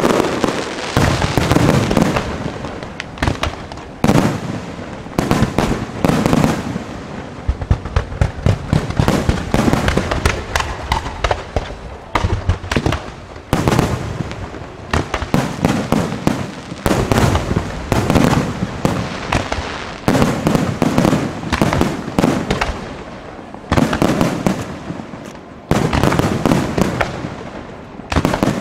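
Aerial fireworks show: shells bursting in quick succession, with many sharp bangs overlapping and louder surges every few seconds.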